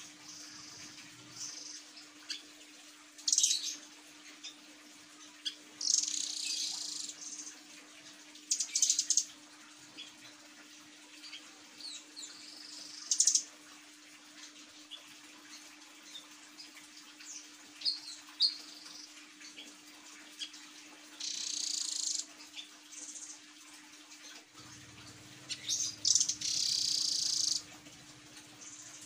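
Caged rambatan doraemon songbird giving short bursts of high-pitched calls, about six in all, some lasting up to a second, over a faint steady hum.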